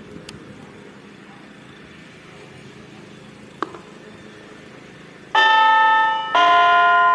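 A Whelen WPS-2720 electronic siren sounds a loud bell-like chime tone starting about five seconds in, each note held about a second before it steps to a new pitch. Before that there is only a faint background with a single short click a few seconds in.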